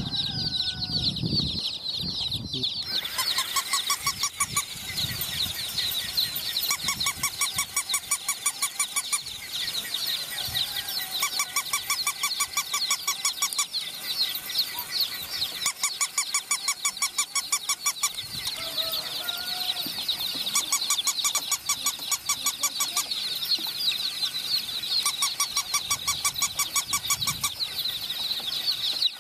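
Baby chicks peeping continuously with rapid high chirps. From about three seconds in, a battery-operated plush walking toy puppy adds a fast, evenly pulsing sound that comes in spells of a few seconds with short gaps.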